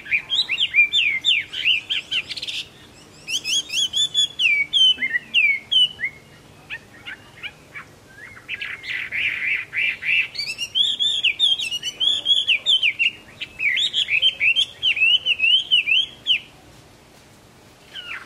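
Caged Chinese hwamei (Vietnamese họa mi) singing long runs of quick, sliding whistled notes, broken by gaps of one to two seconds. Harsher, buzzy passages come about two seconds in and again about nine seconds in.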